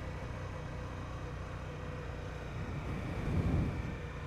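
Sport motorcycle engine running steadily with a low hum, swelling briefly louder about three seconds in.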